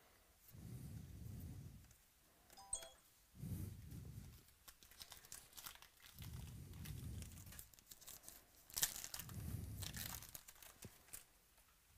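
Foil trading-card pack being torn open, its wrapper crinkling and rustling in several bursts, loudest about nine seconds in. A short electronic beep sounds a little under three seconds in.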